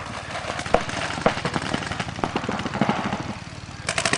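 Paintball markers firing strings of rapid shots, a dense crackle of pops. Near the end a closer marker starts a faster, louder string.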